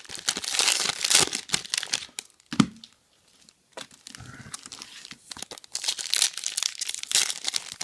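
Foil wrapper of a Topps Chrome football card pack being torn open and crinkled by hand, in two spells with a near-quiet pause in the middle. A short knock sounds about two and a half seconds in.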